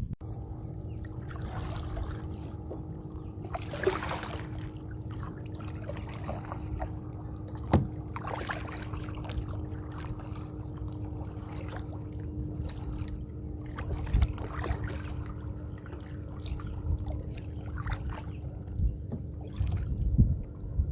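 Kayak paddle strokes dipping and splashing in calm water, with trickling drips from the blade between strokes, over a steady low rumble.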